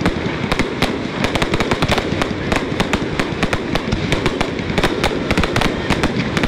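Fireworks display going off: a dense, continuous crackle of many sharp bangs in quick succession over a low rumble.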